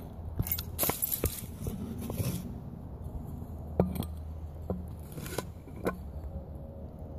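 Footsteps and rustling through dry leaf litter, with scattered clicks, knocks and light clinks as a glass bottle is handled and set down.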